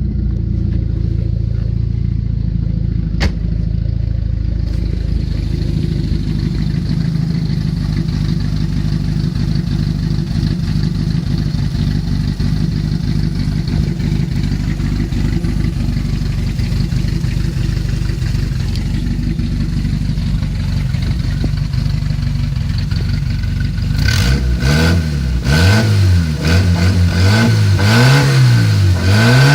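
Toyota Carina's 1989 4A-F 1.6-litre four-cylinder engine idling steadily, with a single sharp click a few seconds in. Near the end it is revved up and down several times in quick blips.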